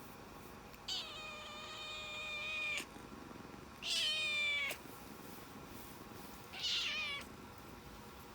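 A cat meowing three times: a long drawn-out meow, then a shorter one that falls in pitch at the end, then a brief one.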